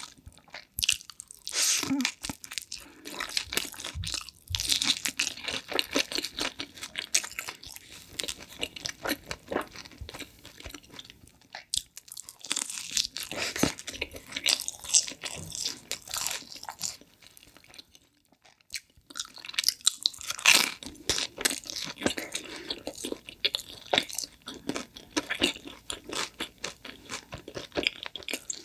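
Close-up crunching and chewing of crispy pizza crust, bite after bite in clusters with a few brief pauses.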